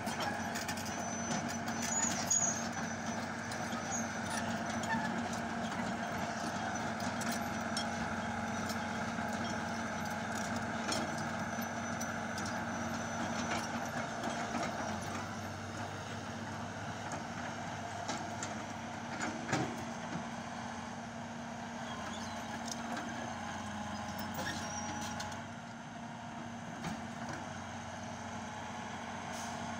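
Hitachi crawler excavator's diesel engine running steadily while it works, with a fixed hum and occasional short knocks.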